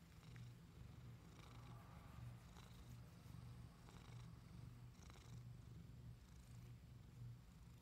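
A long-haired tortoiseshell cat purring faintly, a low steady purr that swells and fades about twice a second with its breathing, while it is rubbed under the chin. Soft rustles of the hand moving through its fur and whiskers come now and then.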